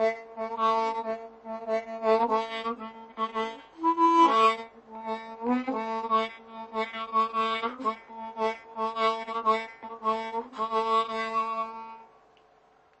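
Harmonica playing quick, rhythmic repeated chords, with a couple of short bent notes around the middle, fading out about a second before the end.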